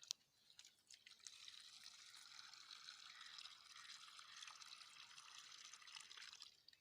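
Liquid pouring steadily: a faint, even splashing that starts about a second in and stops just before the end, after a single click at the start.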